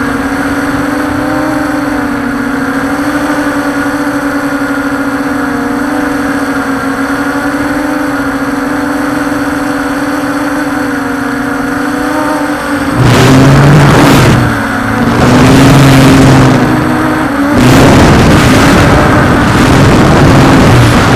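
Walkera Scout X4 quadcopter's motors and propellers whirring at a steady pitch, heard from the drone's own camera. About 13 seconds in, a louder gusty rushing of wind on the microphone takes over in surges, with the motor tone dropping lower beneath it.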